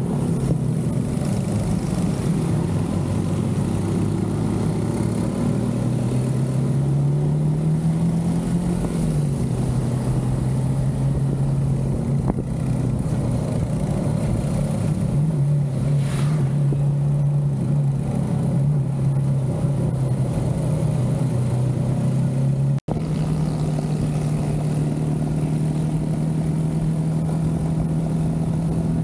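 Motorcycle engine running steadily under way, its pitch climbing and settling back as the throttle changes, with wind and road rush around it. The sound drops out for an instant about two-thirds of the way through.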